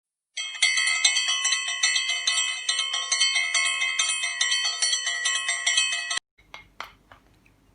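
Intro jingle of quick, bright bell-like notes struck in a steady rhythm, cutting off suddenly about six seconds in, followed by a few faint clicks.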